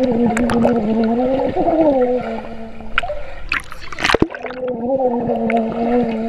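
A child's voice heard underwater through the water, held as two long, slightly wavering notes about two seconds each with a break in the middle. Bubbles crackle throughout, with a short rush of water noise in the break.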